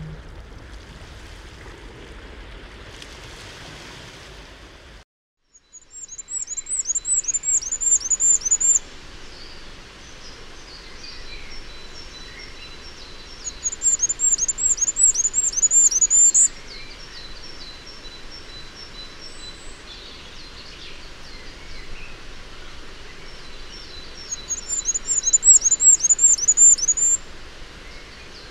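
Male firecrest singing three high, thin song phrases, each a fast run of repeated notes that grows louder and then stops abruptly. They come about six seconds in, about halfway through, and near the end, over a steady background hiss.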